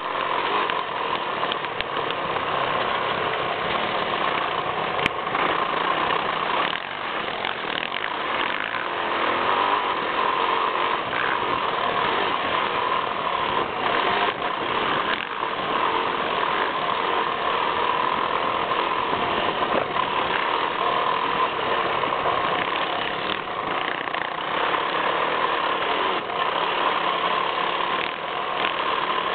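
Yamaha YZ450F four-stroke single-cylinder motocross engine running hard while the bike is ridden around a dirt track, heard from a camera on the front fender, with wind noise over the microphone. The sound stays loud and steady throughout.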